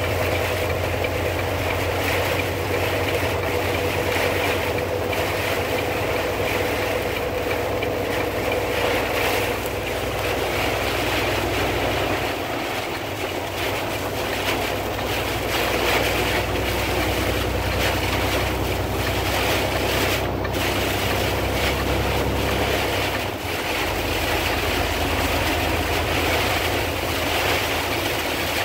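Steady noise inside a car driving through a heavy rainstorm: rain and wind on the windshield and body over the low drone of the engine and tyres on wet road.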